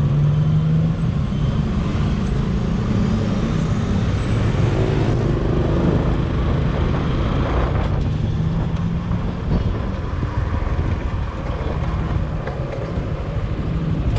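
Motor scooter being ridden in traffic: its small engine hums steadily under road and traffic noise, and the engine note eases off about two-thirds of the way through as it slows.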